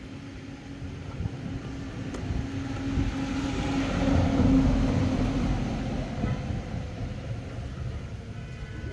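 A vehicle engine passing by, a low hum that grows louder to a peak about halfway through and then fades away.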